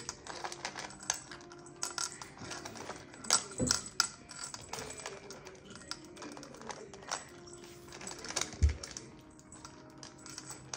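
A small dog eating dry kibble from a plastic bowl: quick, irregular crunches and clicks of kibble against the bowl. There is a heavier knock about three and a half seconds in and a louder one near nine seconds.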